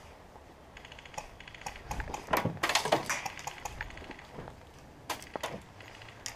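Airsoft gunfire: rapid bursts of clicking and snapping, densest and loudest around two to three seconds in, with a few single sharp snaps near the end.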